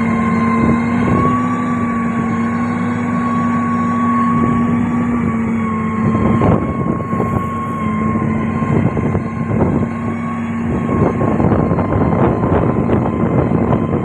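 Komatsu motor grader's diesel engine running steadily with a humming note that wavers slightly in pitch. From about six seconds in, a rough crunching crackle is added on top.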